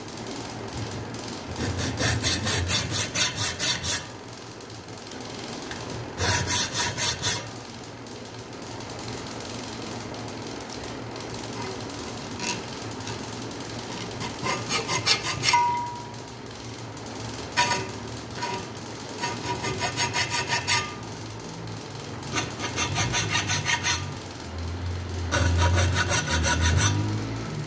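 Small hand file rasping across the spine of a steel knife blade clamped in a vise, cutting decorative filework. It comes in several bursts of quick back-and-forth strokes with short pauses between them.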